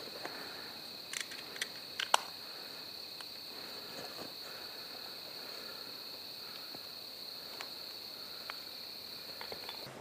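Insects trilling in a steady, high-pitched chorus, which cuts off suddenly near the end. A few light clicks are heard in the first two seconds.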